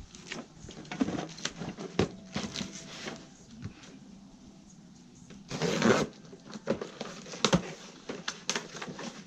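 Saw parts and packing being handled and lifted out of a cardboard box: scattered knocks, clicks and rustling, with a louder rustle about six seconds in.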